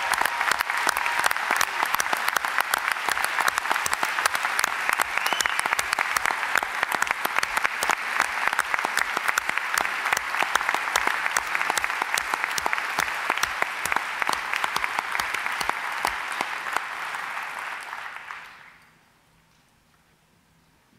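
Large congregation applauding steadily, with the clapping fading out about eighteen seconds in.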